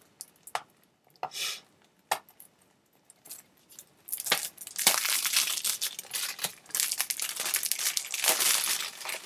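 A few light clicks, then, from about halfway in, steady crinkling and rustling of plastic and paper packaging as a Blu-ray case and its inserts are handled.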